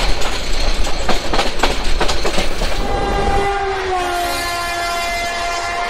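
Train wheels clacking over rail joints in quick, irregular knocks, then, from about three seconds in, a long diesel locomotive horn blast whose pitch drops slightly about a second after it starts, as a passing horn does.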